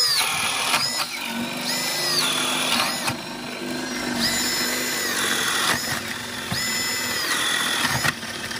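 Two cordless drills boring holes side by side into a wooden board with paddle bits, one of them a Spyder self-feeding paddle bit. The bits grind steadily through the wood under a motor whine that rises and falls several times as the faster drill moves from hole to hole.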